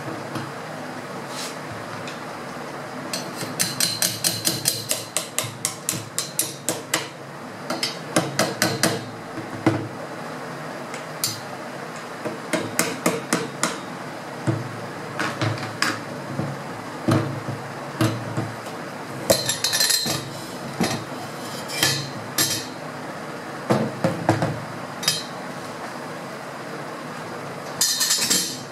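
Repeated sharp metal clicks and knocks from handling an air rifle and its mainspring compressor jig: a fast even run of taps, about four or five a second, a few seconds in, then scattered clicks and short clusters.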